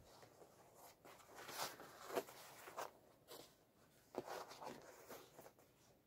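Faint, intermittent rustling of clothing fabric as a cloth is tucked into the back of trousers, a soft brush every half second or so.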